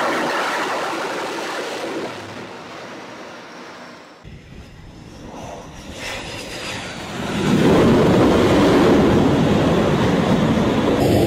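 Fighter jet engine noise, a steady rush without clear tones. It fades over the first few seconds, then a landing jet's noise builds and stays loud from a little past halfway.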